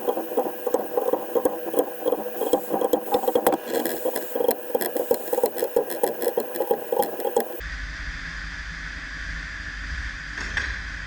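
Ratchet wrench clicking rapidly in bursts while engine bolts on an Iveco Cursor 13 are turned through their final 60-degree angle-tightening step. The clicking stops abruptly about three-quarters of the way through, leaving a low steady hum.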